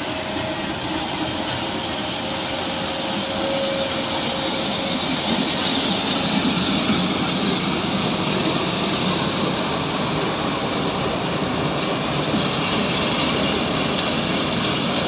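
Sugarcane harvester running at work, cutting and chopping cane and loading it into a ten-wheel truck that drives alongside; the engines and chopping gear make a steady, dense machine noise with no breaks.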